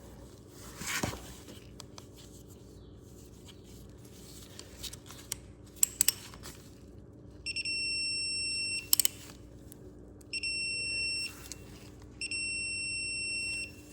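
Three long, high electronic beeps, each over a second, from a digital torque wrench signalling that the set torque on a drain bolt has been reached. A few sharp clicks come before and between them.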